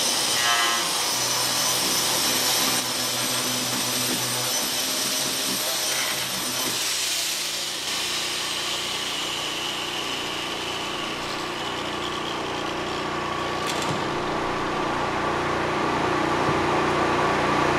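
Corded angle grinder running, grinding down the concrete floor slab in a door opening to take off high spots and level it for the door sill. It runs as a steady whine with a grinding hiss, and its pitch and tone change about seven seconds in.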